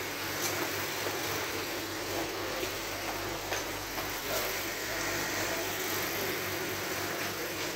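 Steady supermarket background noise: an even hiss with a low hum underneath and a few faint clicks and knocks.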